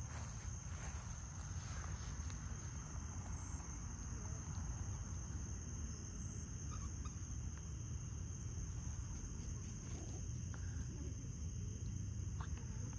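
Steady, high-pitched chorus of crickets trilling without a break, over a low rumble.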